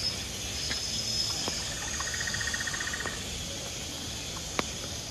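Outdoor rainforest-like ambience in light drizzle: a steady hiss of light rain under high, steady insect chirring, with a rapid trill about two seconds in that lasts just over a second. A few sharp ticks are heard, the loudest near the end.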